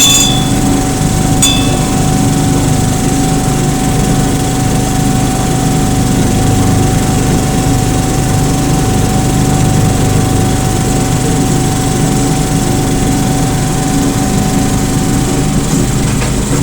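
Small engine of an 18-inch gauge hydrostatic-drive locomotive running steadily under way, with a steady whine over it. A single bell ring sounds about a second and a half in.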